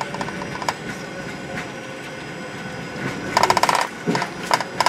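Cabin noise of a Fokker 70 taxiing on the ground: a steady rumble from the engines and tyres, with scattered clicks and rattles of the cabin fittings and a short burst of rapid rattling about three and a half seconds in.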